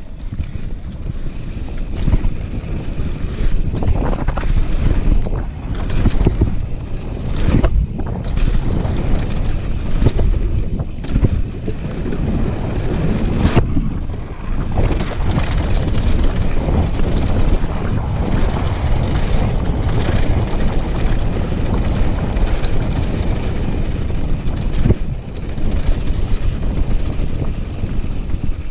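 Wind buffeting the microphone of a helmet-mounted action camera on a mountain bike riding down a dirt and gravel trail, with steady tyre noise and scattered knocks and rattles from the bike over bumps.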